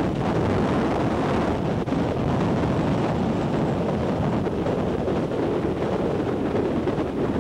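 Hurricane wind buffeting a camcorder's microphone in a loud, steady rush, over wind-driven chop on the water.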